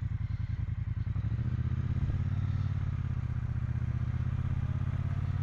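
2018 Triumph Bonneville T120's 1200 cc parallel-twin engine running with a steady exhaust pulse. About a second in it picks up and holds a little louder and higher as the bike pulls away.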